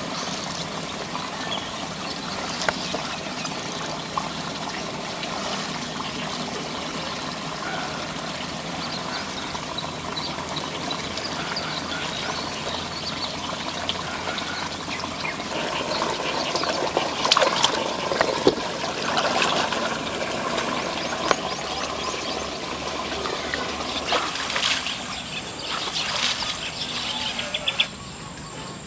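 Muddy ditch water sloshing and splashing as a person wades through it, with sharper splashes about halfway through and again near the end. Over it, a high insect buzz comes and goes in stretches of a second or two, fading out after about two-thirds of the way.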